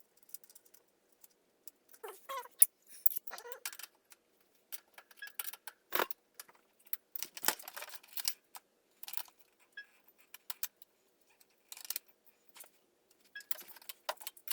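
Irregular metallic clicks and clinks of a wrench working the top locknut and adjusting cup of a 1-inch threaded bicycle headset as it is tightened down.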